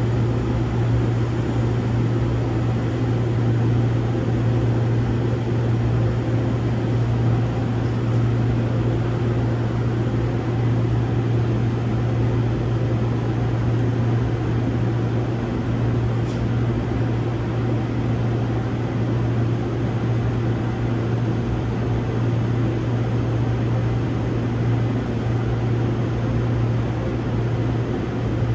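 Steady low hum and whirr of a stationary Seoul Metro Line 1 electric commuter train's onboard equipment, heard from inside the car as it stands at a station.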